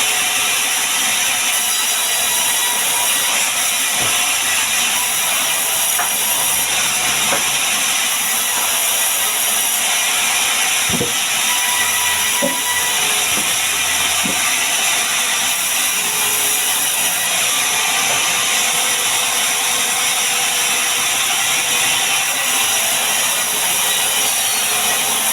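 Power tool working wood, a steady loud noise, with a few faint knocks about halfway through.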